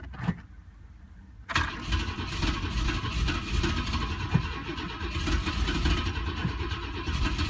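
The carburetted straight-six of an Opel Commodore C 2.5S being cranked on the starter from about a second and a half in, turning over steadily without settling into a run: a hard cold start.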